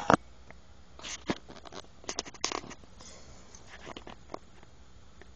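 Two sharp knocks, then a run of irregular rustles and scratches in a small animal's cage, with no pitched calls.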